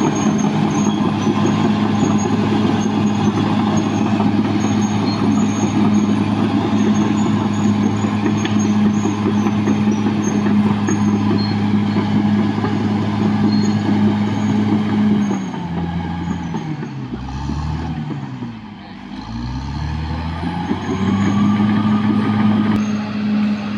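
Caterpillar D6R XL bulldozer's diesel engine running steadily at high revs. About 15 seconds in the revs drop and waver for several seconds, then climb back to full speed about 21 seconds in.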